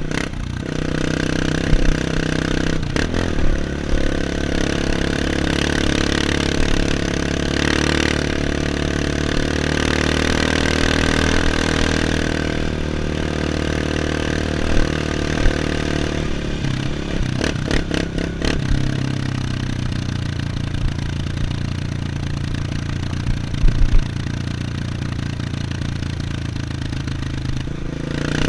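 Off-road motorcycle engine running under throttle, held at higher revs for the first half or so, then dropping to lower, steadier running about two-thirds of the way through. A few sharp knocks come through along the way.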